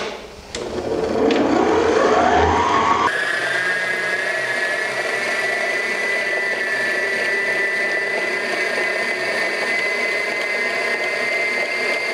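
Planetary stand mixer beating softened butter: its motor whine rises in pitch as it speeds up over the first three seconds, then jumps to a steady high whine that holds.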